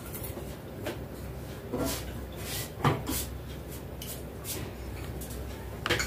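Green Indian ringneck parakeet moving about in its wire cage: a handful of short, light clicks and knocks spread a second or so apart, the loudest about three seconds in.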